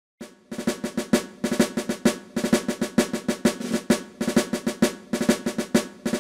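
Intro music of fast drumming: a snare-drum pattern of quick strikes and rolls that repeats in a steady rhythm, starting about half a second in.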